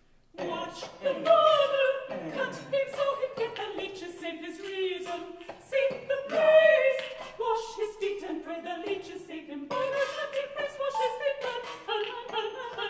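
Three women's voices (soprano, mezzo-soprano and contralto) singing together a cappella in close harmony, coming in abruptly about a third of a second in, with pitches that slide up and down.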